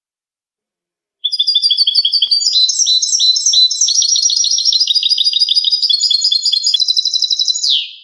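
European goldfinch (jilguero) singing a clean, unbroken song of fast, repeated twittering notes, the kind of 'cante limpio' recording played to teach captive goldfinches. It starts about a second in and ends with a falling note, then cuts off.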